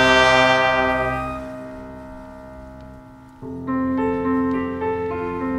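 Musical accompaniment between sung phrases. A held chord dies away over about three seconds, then a new accompaniment figure of changing notes comes in about three and a half seconds in.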